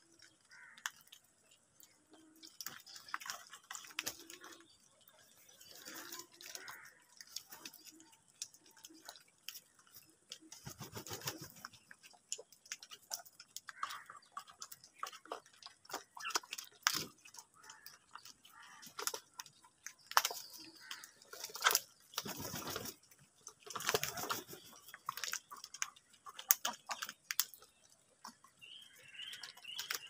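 A flock of house crows feeding from a plastic tub and off concrete: many small pecks and taps with soft scattered calls, and a few louder brief rustles of wings. A quick run of short high chirps comes near the end.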